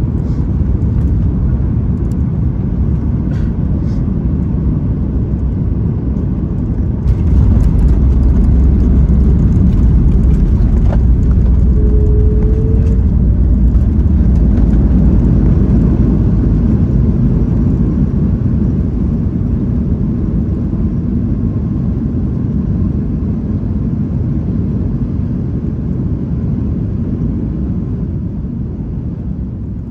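Boeing 737 MAX 9's CFM LEAP-1B engines and landing roll, heard from the cabin: a steady low rumble with a few knocks in the first seconds. About seven seconds in the roar rises suddenly, as with reverse thrust on the runway, then slowly dies away as the jet slows.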